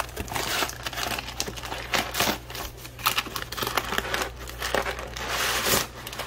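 Brown kraft packing paper crumpling and crinkling as hands pull it about in a cardboard parts box and lift out the paper-wrapped pump, a continuous run of irregular rustles.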